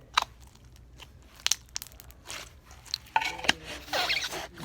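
Slime being squeezed and stretched by hand, giving scattered sharp pops and crackles that thicken into a burst of crackling near the end.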